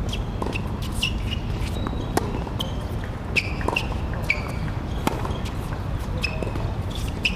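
Tennis rally on a hard court: a run of sharp pops as rackets strike the ball and it bounces, the loudest a little after two seconds and near three and a half seconds in. Short high squeaks come throughout, over a steady low rumble.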